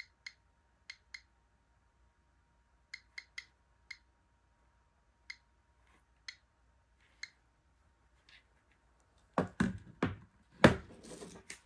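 GQ GMC-600 Plus Geiger counter clicking at irregular intervals, roughly one click a second. Each click is a detected count from the weak gamma radiation of a potassium chloride salt substitute. Near the end come a few louder knocks and rustling as the handheld counter is moved and set down on a wooden table.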